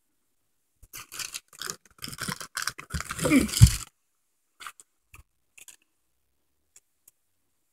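Cardboard and packaging being rummaged through and handled: irregular rustling and scraping for about three seconds, ending in a heavier bump as the product box is lifted out, then a few light clicks.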